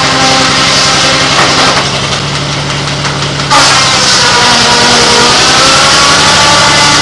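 Engine-driven sawmill machinery running loudly and steadily. The sound dips for a couple of seconds, then comes back suddenly louder about three and a half seconds in.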